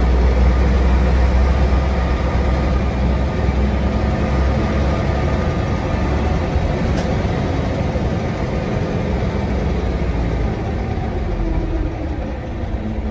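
Single-deck bus's diesel engine heard from inside the passenger saloon as the bus drives along: a steady, low-pitched drone that eases off slightly near the end.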